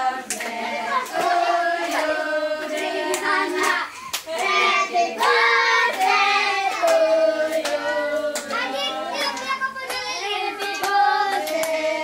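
A small group of adults and children singing a birthday song together, with hands clapping steadily in time to it.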